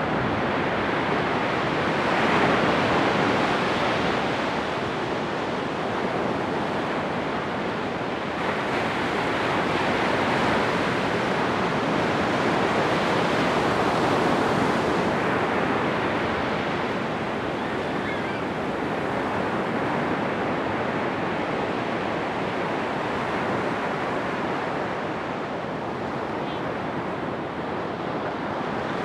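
Pacific Ocean surf breaking on a beach: a steady wash of noise that swells and eases slowly every several seconds.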